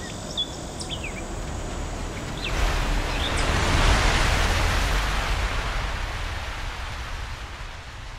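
A broad rush of noise swells up about two and a half seconds in and fades slowly away. A few short high chirps come in the first second or so.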